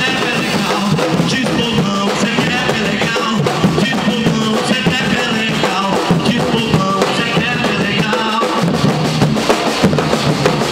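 Afro-Brazilian drum group playing a dense, continuous rhythm on large surdo bass drums struck with sticks.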